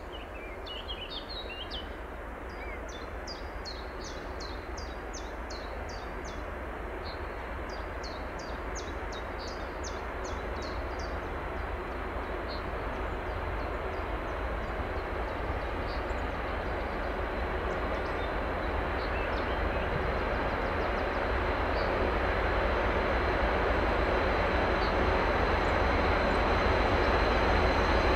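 DB Cargo class 232 'Ludmilla' diesel locomotive approaching with a train of tank wagons, its engine rumble and running noise growing steadily louder. A bird sings over it during roughly the first ten seconds.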